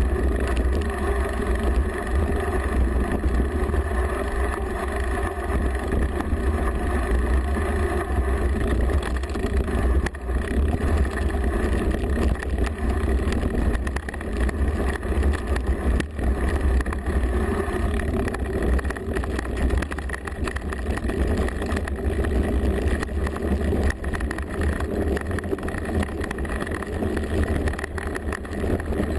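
Mountain bike rolling down a rough trail, heard through a bike-mounted GoPro: a steady low rumble of wind buffeting and frame vibration, with small rattles and knocks from the bumpy ground.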